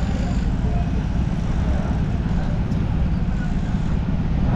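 Steady low rumble of motorcycle engines running at a crowded fuel stop, with faint voices in the background.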